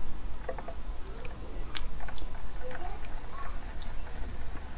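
Supercooled cola pouring from a plastic bottle onto a bare palm and freezing into slush as it lands: a light trickle with scattered small crackles and clicks.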